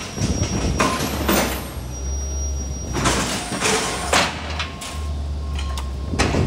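Hydraulic hoof-trimming crush being lowered and opened to let a cow out. A steady low hum, which stops briefly near the end, runs under several loud metal clanks and knocks from the crate's gates and frame.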